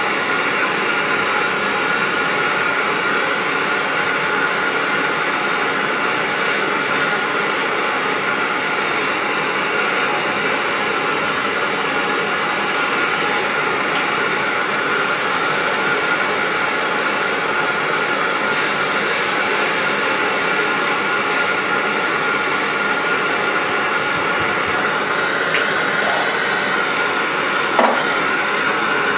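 Handheld gas torch burning with a steady hissing flame as it heats a soldered copper pipe joint to melt the solder and take the fitting off (unsweating). A brief knock near the end.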